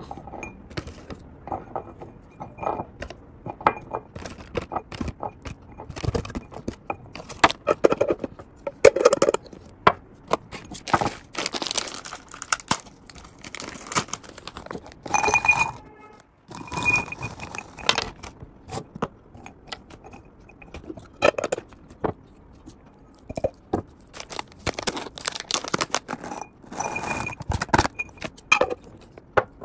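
Dried fruit pieces dropped and pushed by hand into a small glass jar, clinking and rattling against the glass, with crinkling of plastic packaging between handfuls. Candied kiwi goes into the jar first, black raisins near the end.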